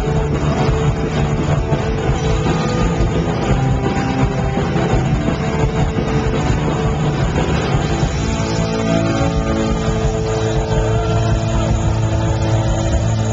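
Punk rock band playing live at full volume, with distorted electric guitars and drums. From about eight seconds in, the guitars hold long sustained notes.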